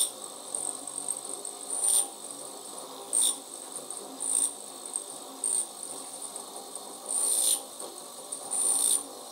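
High-speed milling spindle on a benchtop lathe drilling a 6 mm hole in aluminium: a steady high whine under a lower running noise, with louder bursts of cutting noise roughly once a second.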